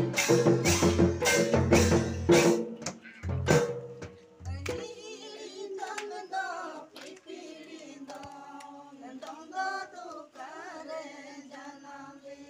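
Drums of the Santhali Dasai dance beat a fast, steady rhythm, then stop about four and a half seconds in. Men's voices then carry on singing the Dasai song without the drums.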